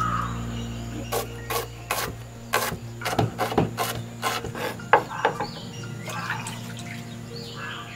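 Large kitchen knife chopping small red onions on a wooden cutting board: a run of sharp, irregular chops, about two a second, that thins out after about five seconds.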